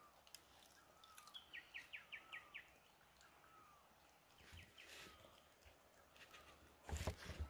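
Faint birdsong: a bird repeats a short falling chirp about once a second, with a quick run of six higher chirps about a second and a half in. Near the end come a few sharper clicks and soft knocks.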